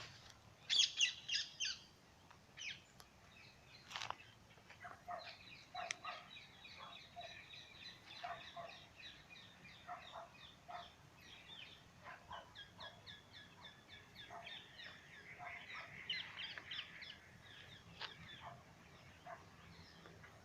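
Several birds calling and singing at once: short overlapping chirps, repeated notes and trills, with a louder burst of rapid chirps about a second in.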